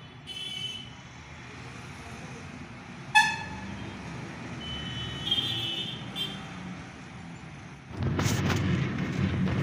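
Vehicle horns tooting over low traffic noise: a short toot, a sharp loud one about three seconds in, and a longer, higher one around five to six seconds. About eight seconds in, the loud steady rumble and road noise of a moving vehicle takes over.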